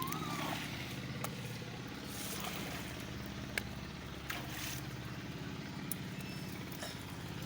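A small boat engine running steadily, with a few short sharp knocks over it.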